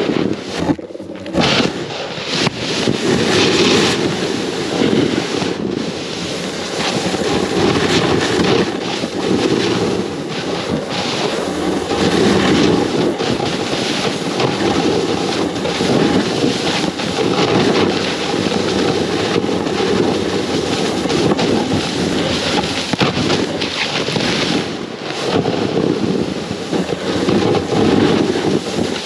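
Snowboard sliding and carving over snow, a loud, steady, rough scraping hiss that swells and eases with each turn, mixed with wind buffeting the microphone close to the board.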